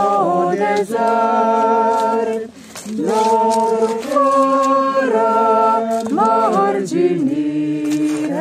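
Unaccompanied voices singing a Romanian Christian hymn in harmony, in slow held notes, with a short break for breath about two and a half seconds in.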